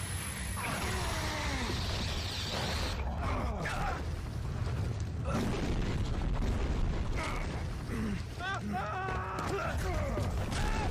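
Sound effects from an animated superhero fight scene: a continuous low rumble under a dense mix of mechanical-sounding noise, with brief faint snatches of voices.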